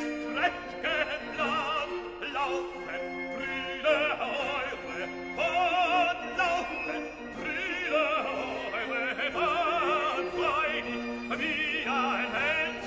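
Operatic music: a classical singing voice with wide vibrato over held accompanying notes.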